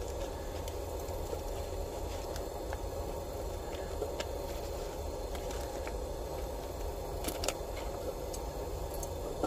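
Steady rushing background noise with a few faint clicks and crinkles as the foil wrapper is peeled off an old trioxane fuel bar that is crumbling apart.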